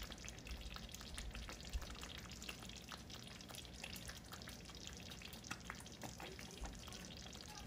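Thick red berbere and tomato stew sauce sizzling and bubbling in a pot, a steady crackle of small pops.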